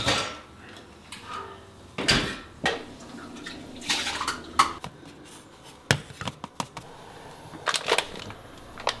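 Kitchen clatter: dishes, a steel pot and utensils clinking and knocking in irregular separate strokes.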